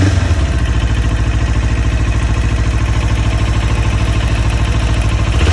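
2019 Kawasaki Ninja 400 parallel-twin engine idling steadily, with a light ticking noise from the engine. The tick has been ruled out as the keychain.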